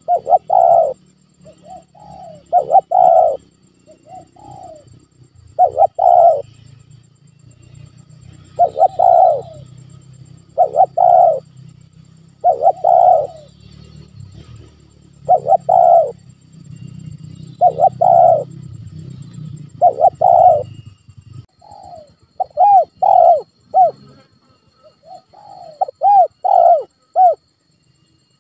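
Spotted dove cooing: repeated coo phrases of one or two notes every second or two, turning into a quicker run of short, arched notes in the last few seconds.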